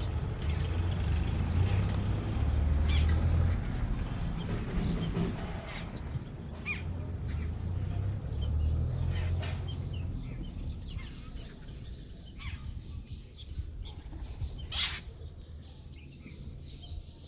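Birds chirping in short, scattered calls over a low rumble that fades out about ten seconds in.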